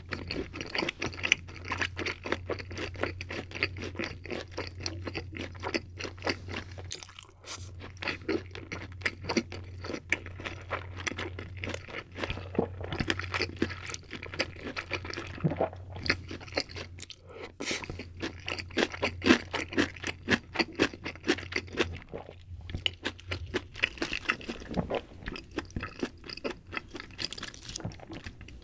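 Close-miked eating sounds: a person chewing and crunching mouthfuls of braised pork with rice, kimchi and a lettuce wrap, in a dense run of wet clicks and crunches. A low steady hum runs underneath and fades out a few seconds before the end.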